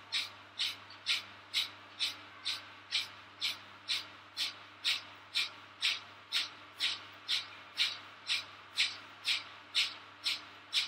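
Kapalabhati breathing: short, forceful exhalations pumped out through the nose in a steady rhythm of about two a second, with quiet passive inhalations between them.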